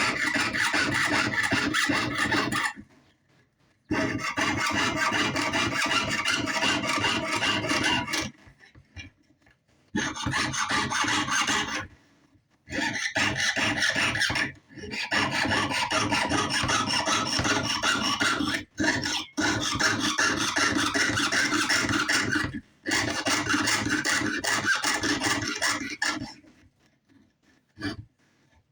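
Jeweler's saw cutting sheet metal by hand: quick, steady back-and-forth strokes in about seven runs of a few seconds each, with short pauses between runs.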